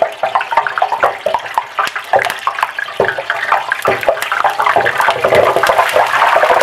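Hot cooking oil in an electric deep fryer bubbling and crackling violently as water from a melting ice cube boils off in it. A dense run of pops thickens into a steadier sizzle near the end.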